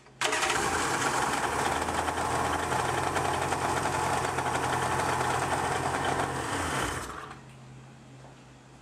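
Polaris SL 750 jet ski's three-cylinder two-stroke engine running steadily, freshly rebuilt and on its first run, then shut off about seven seconds in and winding down.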